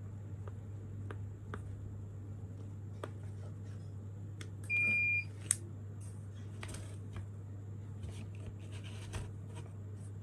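Faint clicks of keypad buttons being pressed to enter a password. About halfway through comes a single half-second electronic beep, then one sharp click, which is typical of the relay switching and the solenoid lock pulling open. A steady low hum runs underneath.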